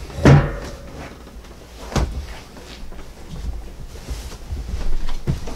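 Movement and handling noises of a person getting up and moving about: a loud bump as they rise, a sharp knock about two seconds in, then soft rustling and small bumps.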